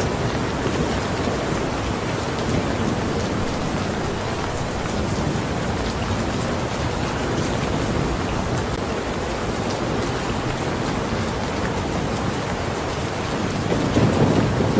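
Steady heavy rain falling on a surface, an even hiss of drops throughout. A low rumble of thunder swells near the end.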